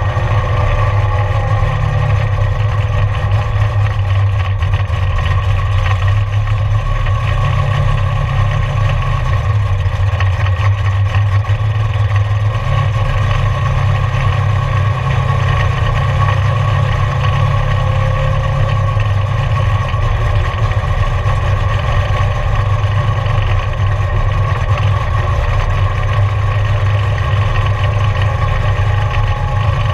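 Camaro race car's engine running at low, even revs, heard from inside the cabin as a steady deep drone with no hard revving.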